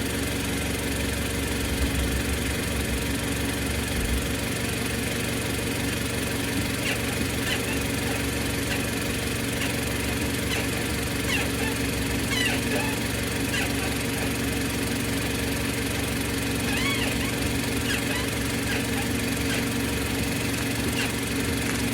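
Mazda 6 GJ engine idling while the steering is turned, with short high squeaks from the front suspension repeating from about seven seconds in. The squeak comes with steering and is traced to the lower control arm.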